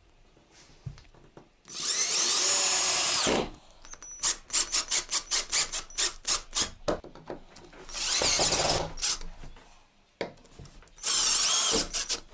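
Cordless drill driving screws into wooden door casing. It runs in three spells of one to two seconds, with a train of about a dozen quick short pulses between the first and second.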